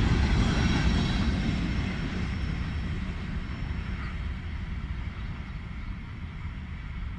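Ferrosur freight train rolling by, a low rumble that fades steadily as the train moves away.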